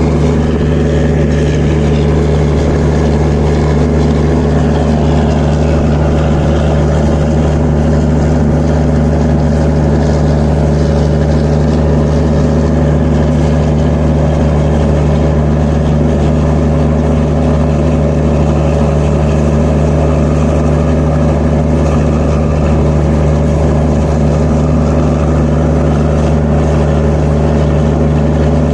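Diesel generator set in a passenger train's generator car (power car) running at constant speed: a loud, even engine drone with a steady hum, holding the same pitch and level throughout.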